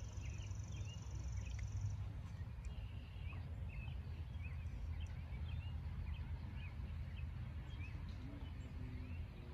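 Small birds chirping in short, scattered calls over a low, gusty rumble of wind on the microphone. A thin, high steady buzz sounds for the first two seconds, then stops.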